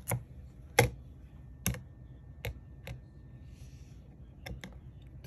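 Hands handling and tapping a smartphone: about seven sharp clicks and taps at irregular intervals, two of them close together near the end.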